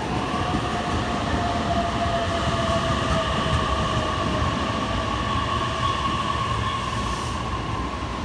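Electric commuter train moving along the platform: a steady whine of a few tones that slowly sinks in pitch, over the rumble of the train and wind buffeting the microphone.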